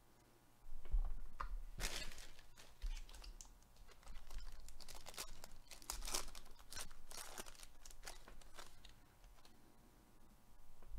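A Panini Prizm baseball card pack's foil wrapper being torn open and crinkled by gloved hands, a run of rips and crackles lasting several seconds, with low handling bumps about a second in.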